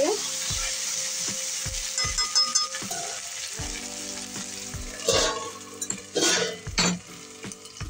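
Taro (arbi) slices frying in hot mustard oil in a steel kadhai, sizzling with a steady hiss while a spatula scrapes and clinks against the pan. The hiss drops after about three and a half seconds, and there are a few loud clanks from about five seconds in as a steel lid is set over the pan.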